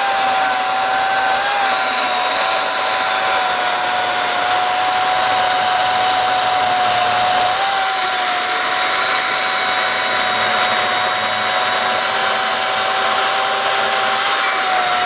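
Kobalt cordless battery chainsaw running flat out with a steady high electric whine, its chain cutting into a hard dead water oak trunk.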